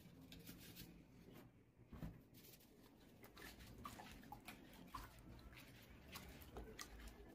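Faint handling noise: hands rubbing and picking at a hardened white craft vase, with small scattered clicks and crackles.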